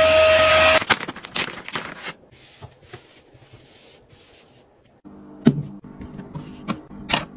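A handheld cordless vacuum runs with a steady whine and cuts off within the first second. Soft rubbing and rustling follows as a paper towel wipes a stainless range hood. Near the end come a few sharp plastic clicks as the lid and button of a small ultrasonic cleaner are handled.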